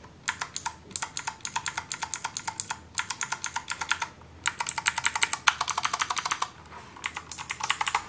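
Redragon Mitra mechanical keyboard with Outemu Blue clicky switches, its keys pressed rapidly in quick runs, each stroke a sharp click. Short pauses break the runs three times.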